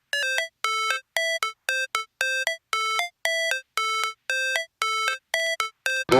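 A simple electronic melody of short beeping notes, about two a second, stepping between a few pitches like a ringtone. A loud electronic dance track cuts in at the very end.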